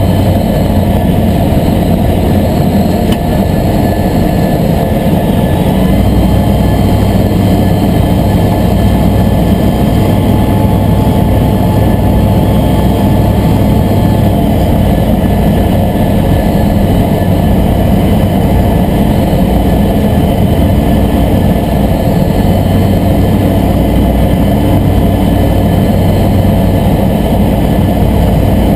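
Aeroprakt A22LS light aircraft's engine and propeller running steadily in flight, heard from inside the cabin. The low engine tone shifts slightly about halfway through.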